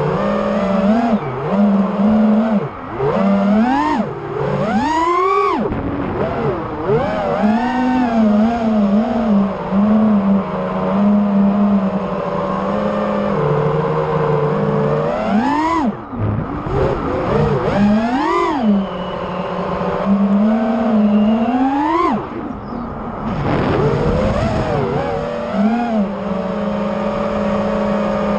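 Armattan Rooster 5-inch FPV racing quadcopter's Underdog 2150kv brushless motors and props whining at cruise. The pitch sweeps up sharply and falls back with each throttle punch, at about 4, 15, 18 and 22 seconds in, and holds steady between.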